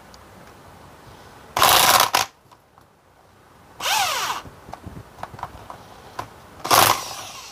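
A small electric motor run in three short bursts of about half a second each, with a rattling buzz; in the middle burst the pitch rises and then falls as the motor spins up and winds down.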